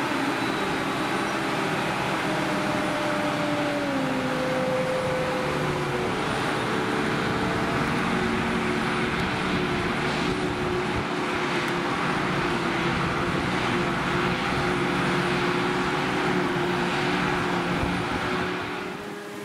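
Claas Jaguar 860 self-propelled forage harvester chopping grass for silage, a loud steady machine drone, with the tractor pulling the trailer running alongside. A whine in the drone drops in pitch twice, about four and six seconds in.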